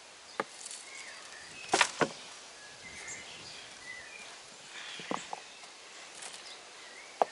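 Hands digging and rustling through potting mix in a plastic wheelbarrow while searching for potato tubers, with a few short knocks as tubers and hands touch the tub; the loudest pair comes about two seconds in. Faint high chirps sound in the background.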